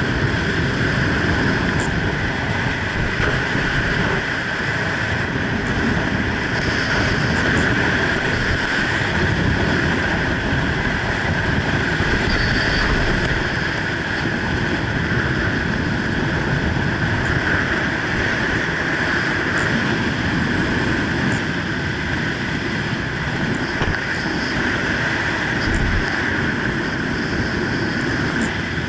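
Steady rush of air over a helmet camera's microphone during a parachute descent under an open canopy.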